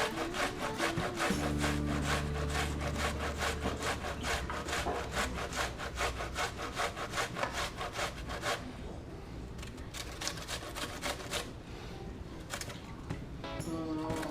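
An onion rubbed up and down the coarse side of a box grater in rapid, even rasping strokes, about three to four a second. The strokes turn fainter and irregular after about eight seconds.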